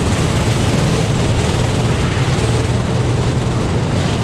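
Go-kart engine running steadily at racing speed, heard through an onboard action camera's microphone with a rush of wind noise over it.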